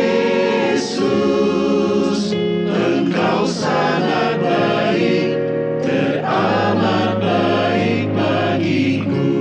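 Mixed choir of men's and women's voices singing an Indonesian church hymn.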